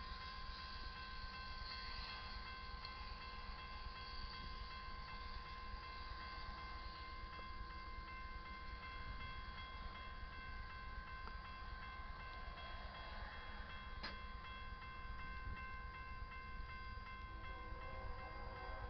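Railroad grade-crossing bell ringing continuously as one steady tone, over the low rumble of a BNSF diesel freight train at the crossing. There is a single sharp click about two-thirds of the way through.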